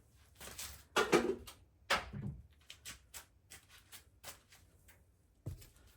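Metal engine parts clattering as the connecting-rod end caps are worked off an old Chrysler Hemi 265 straight-six. There are two sharper knocks about one and two seconds in, then a run of light clicks and taps.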